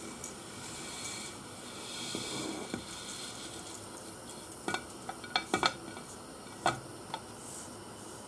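Dry spaghetti tipped from a plate into a stainless steel pot, the stiff strands and plate clicking against the pot in a cluster of sharp ticks between about four and seven seconds in, over the steady hiss of the boiling water.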